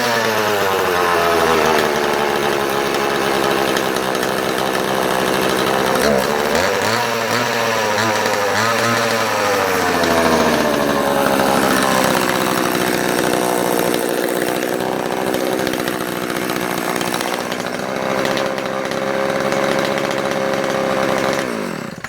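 Oleo-Mac 233 two-stroke chainsaw engine running with the bar and chain removed: its speed drops just after starting, rises and falls twice a few seconds later, then holds steady at idle before it cuts off suddenly near the end.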